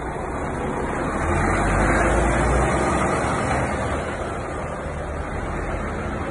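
Articulated lorry pulling a shipping container drives slowly past: its diesel engine rumbles under a steady wash of running noise, swelling to its loudest about two seconds in and easing off after.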